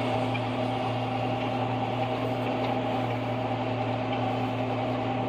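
Tractor engine running at a steady speed, heard from inside the cab as an even drone with a low hum, while chopping corn alongside a forage harvester.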